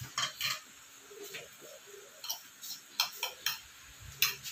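Metal fork and spoon clicking against ceramic plates during a meal: about ten light, irregular clicks, some with a short ring.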